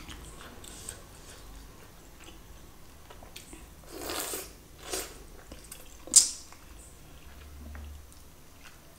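Eating spicy chicken curry with flatbread by hand: quiet chewing with a few wet bites and mouth smacks, the loudest about four and six seconds in.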